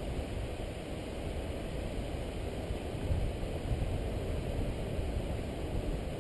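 Wind buffeting the microphone of a camera held out from a tandem paraglider in flight: a steady low rush, heaviest in the bass, with no engine.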